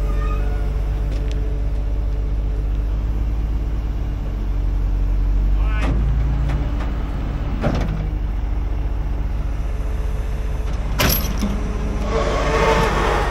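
Diesel truck engine idling steadily, with a sharp knock about eleven seconds in and a noisy scraping rattle near the end.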